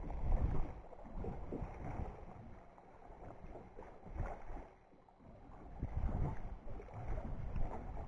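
Wind buffeting the microphone in gusts, a low rumble that dies almost away about five seconds in and then builds back up.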